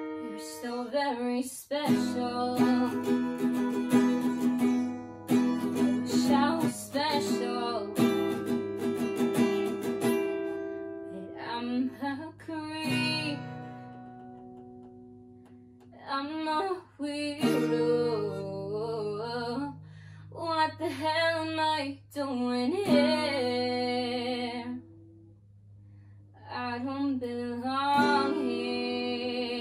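A young woman singing to her own strummed acoustic guitar. Her voice drops out for a few seconds about halfway through and again near the end, leaving quieter guitar.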